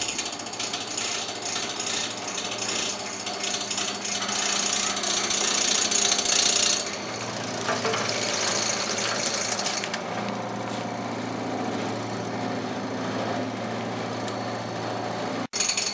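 Electric belt-fed vegetable cutting machine (ORIMAS BC-02) running and slicing carrots: a steady motor hum under a dense, rapid mechanical clatter. It is loudest a few seconds in and cuts off abruptly just before the end.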